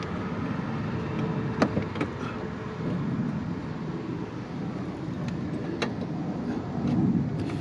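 Steady low noise of road traffic, swelling slightly twice, with a few small sharp clicks of bolt, washer and nut hardware being handled.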